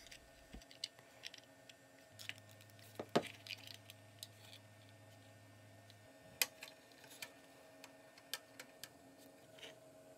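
Faint clicks and taps of 3D-printed PLA plastic parts being handled and fitted together by hand, the sharpest about three seconds in and again a little past six seconds.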